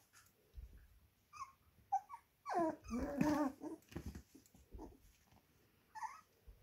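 25-day-old puppies play-fighting, giving short yips and small growls. The loudest is a longer wavering growling cry about two and a half seconds in, lasting about a second.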